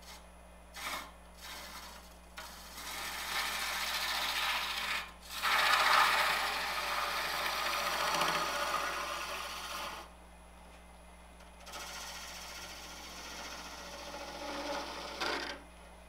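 A bowl gouge cutting into wood spinning on a lathe, in passes: two short touches at the start, a long cut from about three to ten seconds in, the loudest part around six seconds, a brief pause, then another cut near the end. Long ribbon shavings come off the tool.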